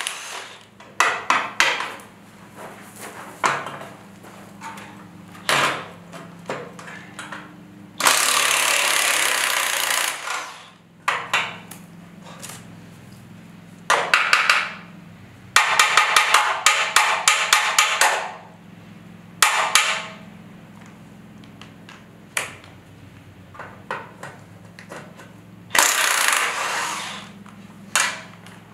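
Cordless impact driver hammering on trailer bolts in repeated bursts of one to two seconds, each a fast rattle of impacts. Single metal knocks and clanks fall between the bursts.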